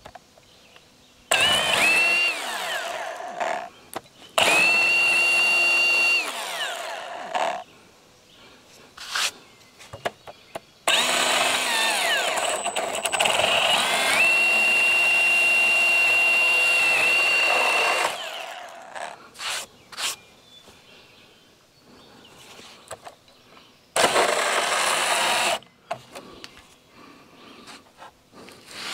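Handheld power drill run in four bursts, its motor whine spinning up to a steady pitch each time, the longest about seven seconds. Short knocks and scrapes come between the runs. The drill is working into a walnut cant around metal buried in the heart of the log.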